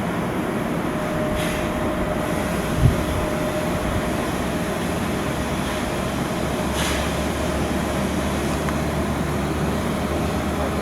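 Steady shipyard work noise: machinery rumble with a steady faint tone, one heavy thud about three seconds in, and a low hum that starts about two-thirds of the way through.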